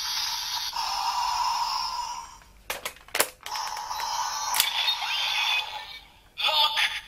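Electronic toy sounds from a Kamen Rider Gaim Sengoku Driver belt and Kachidoki Lockseed: tinny standby music, then a few sharp plastic clicks about three seconds in as the lockseed is locked into the driver, then more standby music from the belt with another click.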